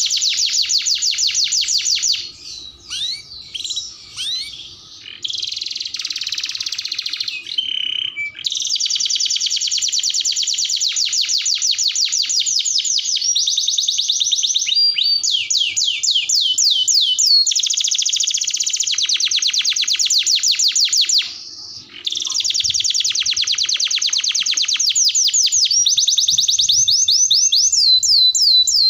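Domestic canary singing a long song of fast trills, phrases of rapidly repeated notes, with a break a few seconds in and a brief pause about two-thirds of the way through.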